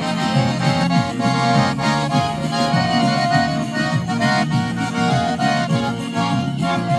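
Garmon, the Russian button accordion, playing an instrumental chanson passage: held chords over a pulsing bass.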